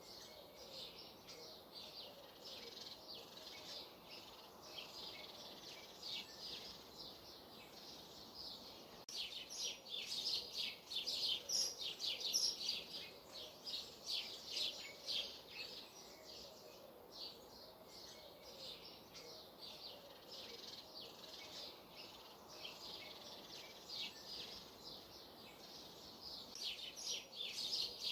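Small songbirds chirping and twittering, many short high calls overlapping, busiest from about ten to sixteen seconds in and again near the end, over a faint steady outdoor hiss.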